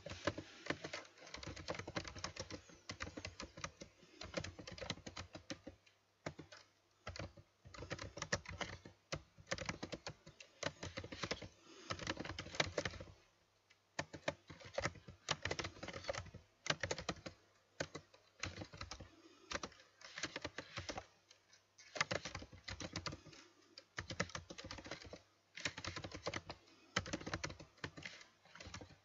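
Computer keyboard typing in quick, irregular runs of keystrokes broken by short pauses, the longest about thirteen seconds in.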